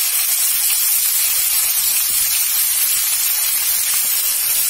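Spiny gourd, potato, onion and green chillies frying in hot oil in a kadai: a steady, loud sizzle of oil bubbling round the freshly added vegetables.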